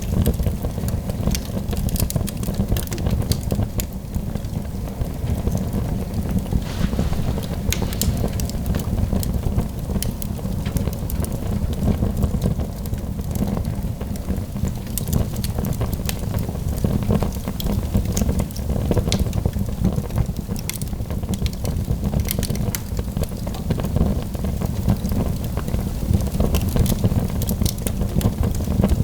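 Wood fire burning in a fireplace, with a steady low rumble and frequent irregular crackles and pops of burning logs.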